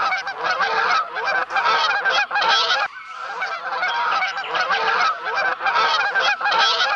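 A flock of domestic Chinese geese honking, many calls overlapping in a continuous chorus with a brief lull about three seconds in.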